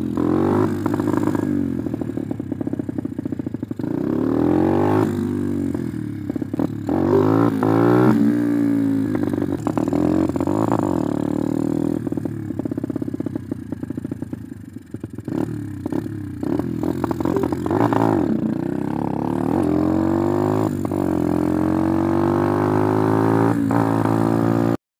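Dirt bike engine being ridden, revving up and falling back over and over, its pitch rising and dropping with each pull of the throttle. The sound cuts off suddenly near the end.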